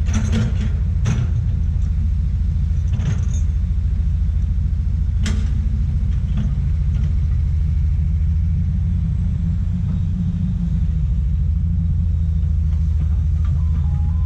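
Komatsu PC200 excavator's diesel engine running steadily with a heavy low rumble, with several sharp knocks in the first few seconds.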